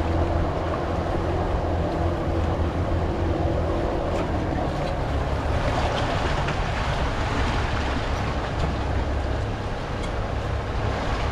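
Fishing boat's engine running steadily at a low hum, with water washing against the hull.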